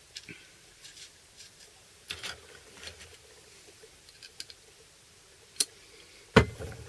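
Scattered small clicks and rustles of things being handled on a workbench, with a sharp click about five and a half seconds in and a louder knock near the end.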